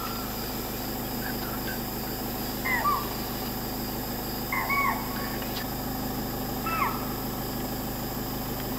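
Spotted deer (chital) giving alarm calls: short, shrill, repeated calls every second or two from a herd on alert, over a steady chorus of night insects.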